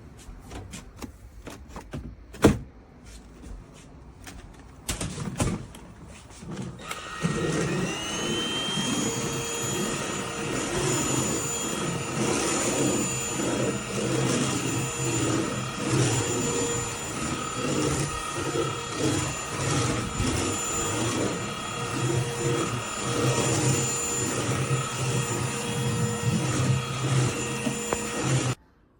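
A few clicks and knocks, one of them sharp, then about seven seconds in a Bieiao cordless stick vacuum is switched on. Its motor whine rises and settles, and it runs steadily with a wavering lower rumble until it cuts off suddenly just before the end.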